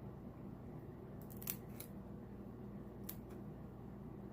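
A few faint, sharp clicks and snaps from Dungeness crab shell being handled and cracked apart, clustered about a second in and again about three seconds in.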